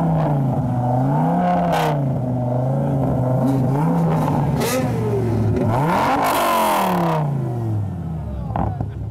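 Devon GTX's modified Dodge Viper V10 revved from idle in a few short blips, then one bigger rev about six seconds in that falls back to idle near the end.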